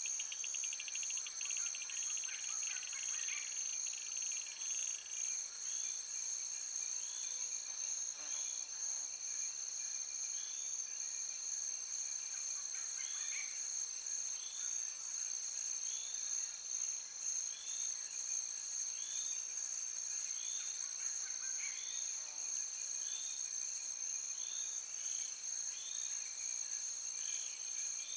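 Steady, high-pitched chorus of insects trilling, with short chirps repeating about once a second over it.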